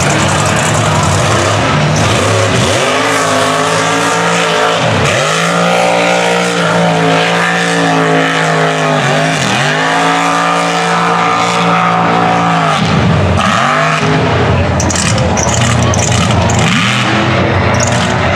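Supercharged big-block V8 of a tractor-tire Chevy Colorado mud truck at full throttle through a mud pit. Its revs climb, drop sharply and climb again three times, over a steady hiss of tires throwing mud.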